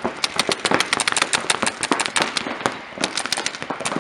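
Paintball markers firing rapid strings of shots, many sharp pops a second overlapping unevenly, as players shoot at each other across the field.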